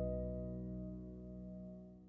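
Closing background music: a last chord rings on and slowly fades out.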